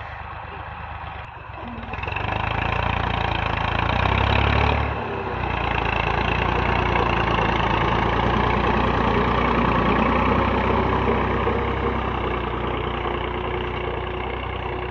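Massey Ferguson 260 tractor's three-cylinder diesel engine running under load as it pulls a tine cultivator through the soil. It gets louder about two seconds in and then runs steadily.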